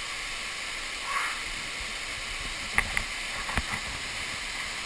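Steady rush of a waterfall pouring into a canyon pool, with a few sharp knocks close to the microphone about three seconds in.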